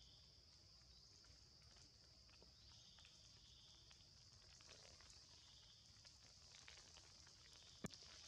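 Near silence: faint outdoor ambience with a steady high-pitched hum, scattered soft clicks and rustles, and one sharp click near the end.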